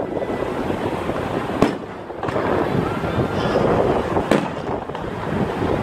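Aerial fireworks shells bursting: two sharp bangs about two and a half seconds apart, over a steady background rush.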